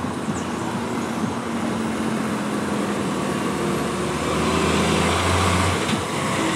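Road traffic noise: a motor vehicle engine running close by over a steady wash of traffic, getting louder about four seconds in.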